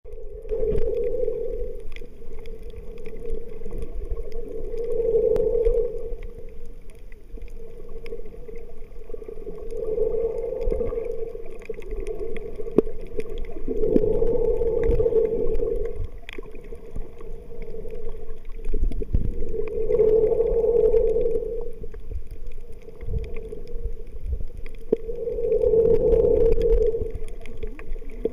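Underwater sound picked up by a camera in its waterproof housing: a steady hum that swells about every five to six seconds, over low rumbling water movement and a few faint clicks.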